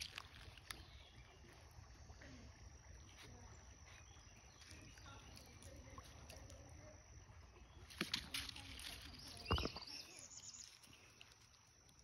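Faint splashing of a puppy's paws and muzzle in shallow creek water at a gravel edge, with a few sharp clicks about eight seconds in and a single louder knock shortly after.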